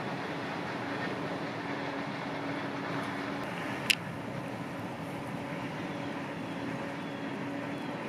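Steady engine drone of farm machinery harvesting corn, with a single sharp click about four seconds in.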